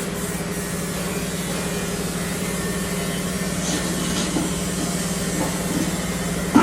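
Turmeric grinding machine's 2 HP electric motor and grinder running steadily with an even low hum, a few faint ticks about four seconds in.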